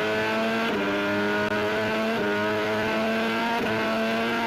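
Racing motorcycle engine at high revs, a steady engine note that climbs slowly in pitch and drops back at each gear change, three times.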